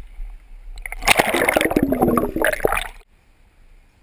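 River water sloshing and gurgling against a waterproof action camera held at the surface, washing over the housing for about two seconds and then cutting off abruptly.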